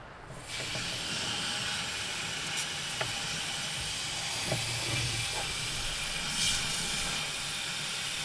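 Water from a garden hose running into the coolant expansion tank of a BMW E28: a steady hiss that starts about half a second in, as the empty cooling system is being filled.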